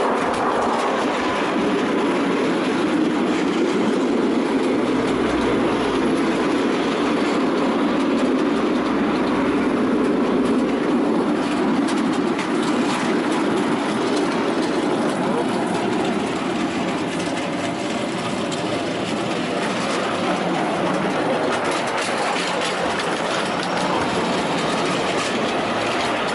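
Rideable miniature railway train running along its track, heard from on board: a steady rumble of small wheels on the rails with occasional clicks.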